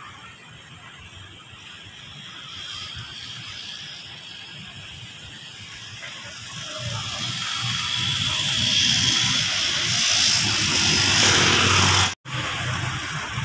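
Street traffic noise, a vehicle's engine and tyre hiss growing steadily louder as it approaches, then cut off abruptly near the end.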